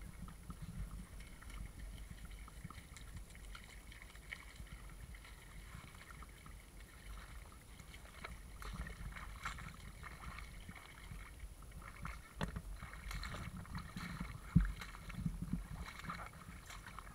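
Low wind rumble on the camera microphone, with scattered faint crackles and clicks and one sharp knock about fourteen and a half seconds in.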